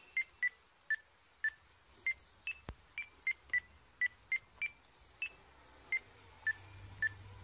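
Keypad beeps from a door-entry intercom panel: one short electronic beep for each key press, about seventeen at an uneven pace, at a few slightly different pitches.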